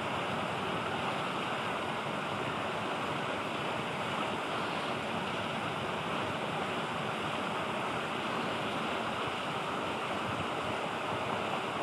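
Steady rushing noise, even throughout, with no distinct sounds standing out.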